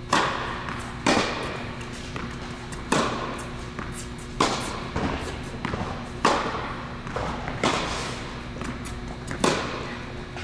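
Tennis balls struck by a racket and bouncing on an indoor hard court: sharp pops about every one and a half seconds, seven in all, each echoing briefly in the hall, over a steady low hum.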